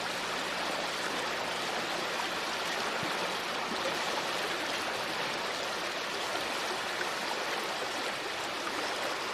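Flowing river water: a steady, even rush of running water.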